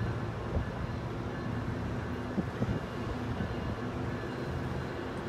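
Metrolink commuter train's bilevel coaches rolling along the track: a steady low rumble of wheels on rail with a faint drone and a few light clicks.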